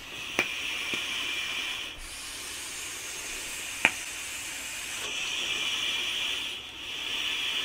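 Two sub-ohm vapes, a rebuildable dripper and a tank, fired for long draws of thick 80/20 VG e-liquid, then big clouds exhaled: a steady hiss of vaping and breath, in two long stretches with a weaker patch in the middle. Two short clicks, the sharper one about four seconds in.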